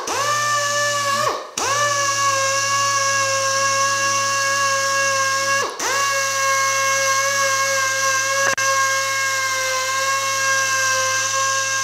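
Small pneumatic air polisher with a foam pad, spinning at a steady high whine over a hiss of exhaust air as it buffs first-stage compound into colour-sanded paint. Its speed drops twice, about a second and a half in and again about six seconds in, then rises back to full speed.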